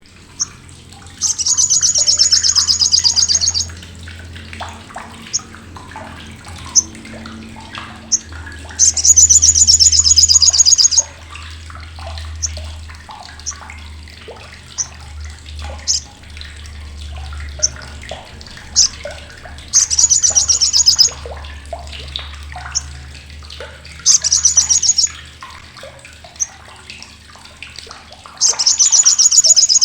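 Olive-backed sunbird (sriganti) giving its harsh chattering crecetan. There are five loud, fast, rattling trills, each lasting one to two and a half seconds, with single sharp chip notes between them. A steady low hum runs underneath.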